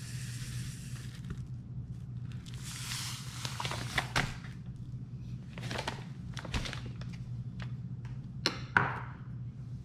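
Sugar hissing from a paper bag into a glass bowl at the start, then the paper sugar bag crinkling and knocking as it is handled and set down a few seconds in. Near the end two sharp knocks, the loudest sounds, as the glass bowl is lifted off a kitchen scale; a steady low hum runs underneath.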